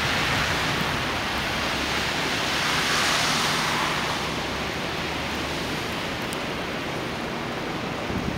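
Steady rushing hiss of blizzard wind, swelling briefly about three seconds in, then easing.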